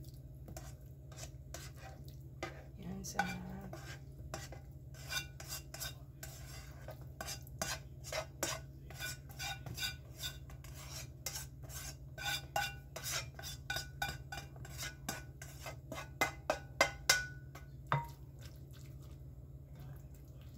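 A plastic serving spoon scraping and tapping against a nonstick frying pan and a baking dish as cooked cabbage and bacon are scraped out: an irregular run of clicks and knocks. The loudest strikes come in a quick cluster a few seconds before the end.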